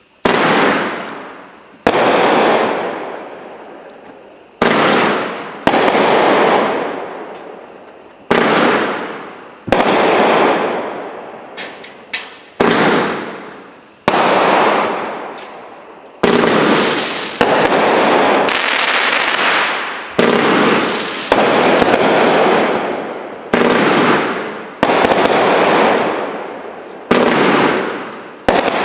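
OMG Fireworks "Insane Asylum" multi-shot fireworks cake firing a long string of shots, roughly one every second or so. Each shot is a sharp bang that fades away over a second or two, with a few coming in quick pairs.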